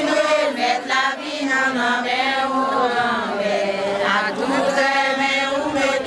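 A crowd of voices, mostly women's, singing together in long held notes, like a chant.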